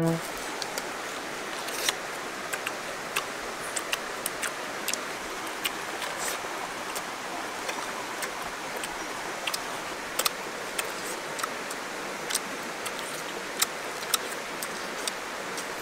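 Eating sounds: irregular sharp mouth clicks and smacks, a few a second, the loudest about two seconds in and near the end, over a steady outdoor hiss.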